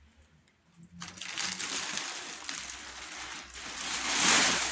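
Plastic bubble wrap crinkling and rustling as it is handled and squeezed, starting about a second in and growing louder toward the end.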